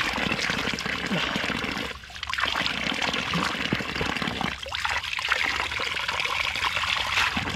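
Spring water running and splashing over a waterproof action camera as it is rinsed in the flow. The water noise drops briefly about two seconds in and again around the middle.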